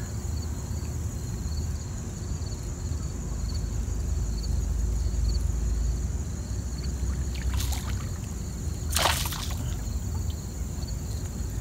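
Insects trilling steadily at a high pitch over a low steady rumble, while a hooked bass is fought in; the bass splashes briefly about nine seconds in, with a fainter splash a second or so before it.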